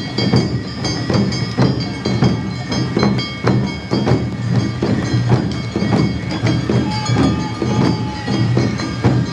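Awa Odori hayashi band music: drums strike a steady beat about twice a second under held, ringing high tones.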